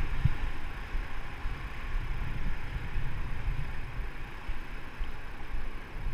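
Fast muddy river water rushing around an inflatable raft in rapids, a steady noise with low, uneven wind buffeting on the microphone.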